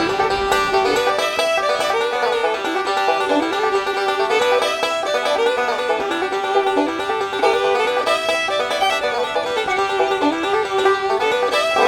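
Upbeat bluegrass-style music, a quickly picked banjo playing a repeating melody.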